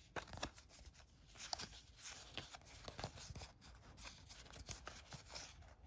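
Stiff game cards sliding and flicking against one another as a fanned hand of cards is sorted through: faint, scattered ticks and rustles.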